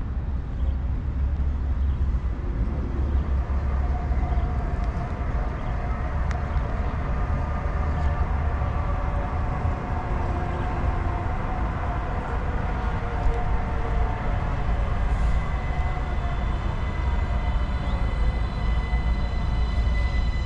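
CRRC Zhuzhou light rail vehicle approaching under electric traction: a whine of several steady high tones from its traction motors and inverters comes in about three quarters of the way through and grows stronger as the train nears. A steady low rumble runs underneath.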